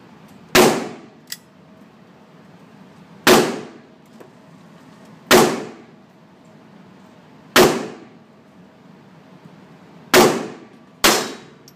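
Six shots from a .22 LR Sig Sauer Mosquito semi-automatic pistol, fired one at a time at uneven intervals, the last two about a second apart. Each is a sharp crack with a short ringing tail.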